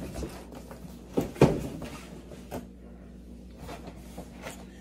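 Cardboard shoebox handled and set down on a table, with a thud about a second and a half in, then a few lighter knocks.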